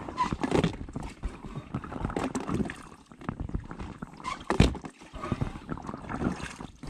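Kayak paddling: a double-bladed paddle dipping and pulling through the water, alternating sides with a splash and drip about every two seconds. A sharper splash about four and a half seconds in is the loudest.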